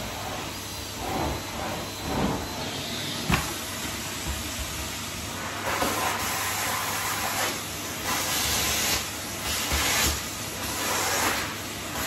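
Numatic Henry cylinder vacuum cleaner running with a steady hiss of suction, swelling louder about once a second in the second half as the nozzle is worked over the floor. A sharp knock about three seconds in.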